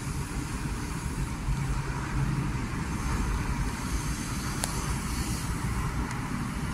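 Diesel running from a filling-station pump nozzle into a Fiat Ducato motorhome's nearly full fuel tank: a steady rush with a low hum from the dispenser. There is a single faint click about two-thirds of the way through.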